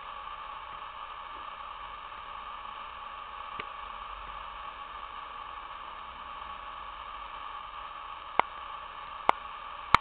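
Steady hiss of recording noise, with a faint click about three and a half seconds in and three sharp clicks near the end.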